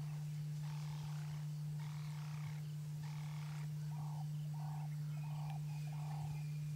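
A steady low hum throughout, with short croaking animal calls repeating about every half second to second, most regular in the second half.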